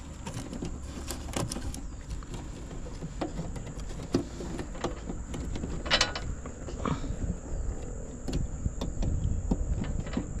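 Hands working fibre patch cords and connectors inside a plastic cable distribution box: scattered small plastic clicks and rustles, with a louder rattle about six seconds in, over a steady low rumble.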